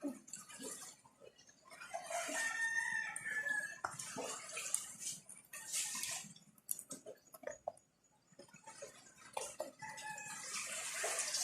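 A rooster crowing, one long held call about two seconds in.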